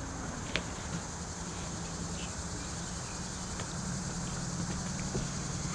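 Outdoor ambience: a steady high insect drone, like crickets, over a low steady hum, with one faint click about half a second in.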